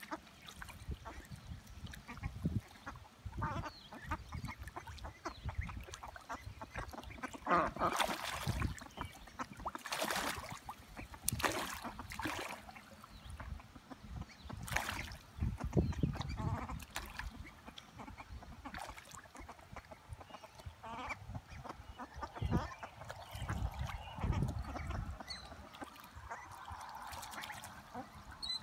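Ducks quacking at intervals, with splashing and paddling from ducklings bathing in a rainwater puddle.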